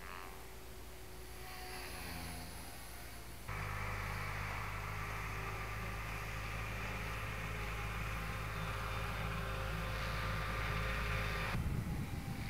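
MSH Mini Protos RC helicopter in flight, its rotor blades and electric drive giving a steady whine with a low hum. The sound jumps louder about three and a half seconds in, where the helicopter is flying piroflips.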